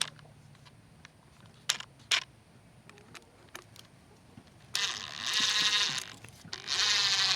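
A few sharp clicks, then two bursts of a power drill driving screws, the first over a second long and the second shorter, near the end. The screws go into a log so rotten it is soft as butter.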